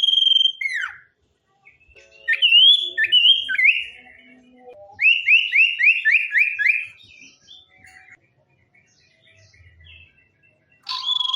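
Sirtu songbird singing: a held whistle that drops away in a falling note, then a few looping whistled notes, then a quick run of about seven rising notes. Near the end the long held whistle starts again.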